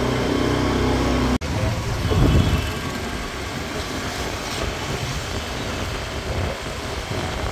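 Motorcycle engine running steadily at a low idle, then after a sudden cut the ride itself: the engine pulling away with a surge at about two seconds, followed by steady road and wind noise as the bike travels along the street.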